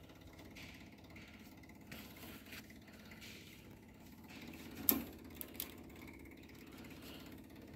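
Fuel pump running faintly as it primes the fuel line on a John Deere 420 garden tractor: a steady low hum, with a single knock about five seconds in.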